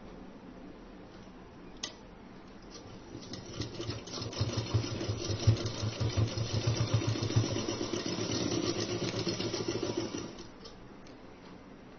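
Sewing machine stitching a short seam across gathered fabric: it starts about three seconds in, runs at a fast, even patter of stitches, and stops shortly before the end.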